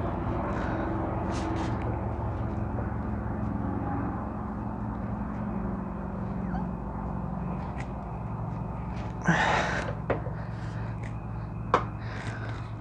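Hand-tool work on a tractor's old steering wheel knob being cut and pried off: a scraping burst about nine seconds in and a couple of sharp knocks later, over a steady low mechanical hum.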